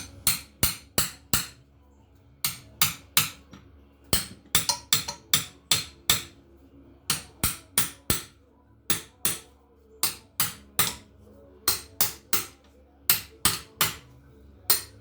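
Hammer striking steel in quick runs of three to six blows, about three a second, with short pauses between runs: tapping on a stuck connecting-rod bolt in a seized six-cylinder engine to drive it out.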